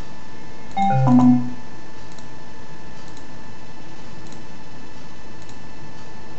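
A short electronic chime of a few notes, about a second in, over a steady hiss.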